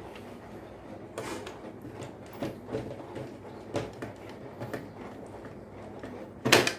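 Small clicks and knocks of wiring being fitted into an electricity meter's terminal, with a louder brief clatter about six and a half seconds in.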